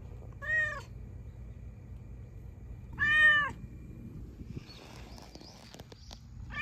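A cat meowing twice: a short meow about half a second in, then a longer, louder meow about three seconds in, each rising and falling in pitch. Faint rustling and clicks follow.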